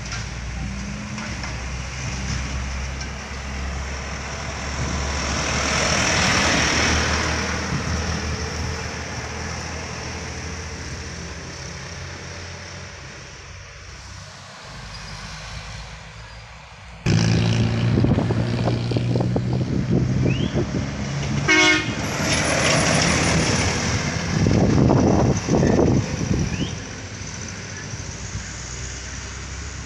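Heavy vehicles, trucks and buses, passing along a road with their diesel engines running. One swells past early on. About halfway through a much louder heavy engine cuts in abruptly, close by.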